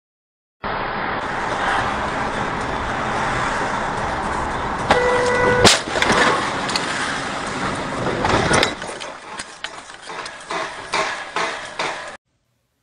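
Car on the road with steady road noise, then a brief horn blast about five seconds in, cut off by a loud collision impact. Scattered knocks and rattles follow.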